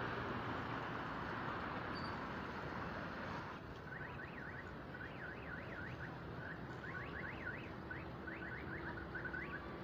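Outdoor background noise. From about three and a half seconds in, a string of quick, high, rising-and-falling chirps comes in and repeats irregularly.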